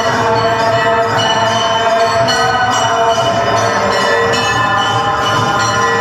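Bells ringing continuously, many overlapping strikes blending into a steady clangour.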